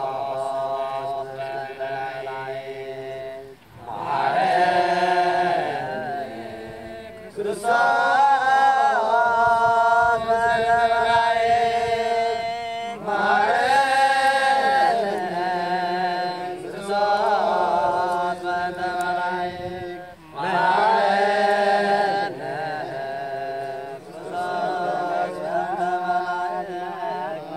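A prayer chanted aloud in long phrases with a wavering pitch, broken by short pauses between the phrases.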